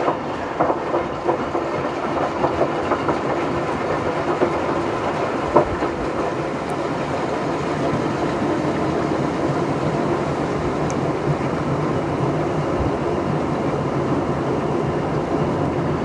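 Empty front-loading washing machine running a tub-clean cycle: the drum turns and water sloshes inside as a cleaner tablet dissolves, with a steady mechanical wash noise and a few small knocks.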